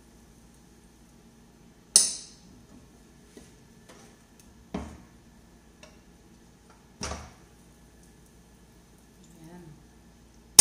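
Double-sided pressure pan being shut and handled on a gas stove: the metal lid closes with a sharp clack about two seconds in, followed by two lighter knocks and a few small taps of the pan and its handles, over a faint sizzle of the food cooking inside.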